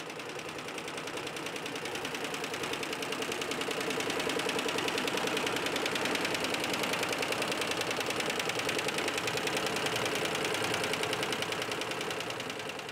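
Six-head Happy multi-needle embroidery machine stitching at speed: a rapid, even mechanical clatter from the needle bars, growing louder over the first few seconds.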